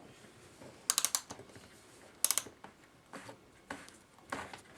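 Mainspring ratchet click of a circa-1905 Sessions kitchen clock movement clicking in short quick runs, about five runs a second or so apart, as the spring is wound up with a key. The spring is gummed with dried grease and does not wind easily or evenly.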